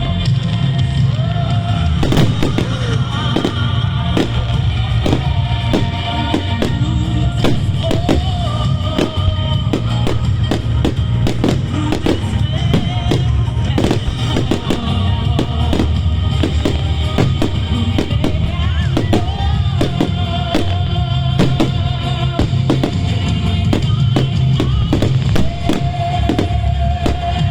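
Fireworks going off in rapid succession, many sharp bangs and crackles, over loud music with a heavy bass beat and melody.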